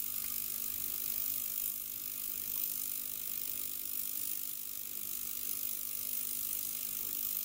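Elma S10H ultrasonic cleaner running: a steady high hiss of cavitation in the cleaning bath, with a faint low hum beneath it.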